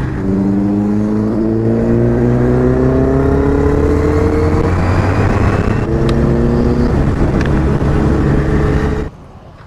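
Kawasaki Ninja 1000's inline-four engine accelerating on the road, its pitch rising steadily for about four seconds, then a short break and a second pull. The sound drops off abruptly about nine seconds in.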